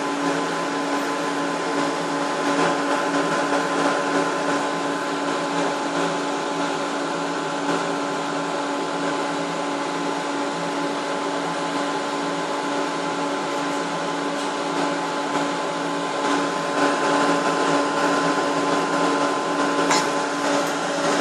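Steady whine and hum of a high-power TV transmitter's cooling blowers running while the transmitter is on air: an even rushing noise with several steady tones on top, growing a little louder near the end.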